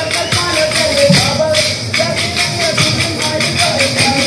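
Kolkali stick dance: short wooden sticks clacked together by a group of dancers in a quick, steady rhythm, under a sung Mappila song melody.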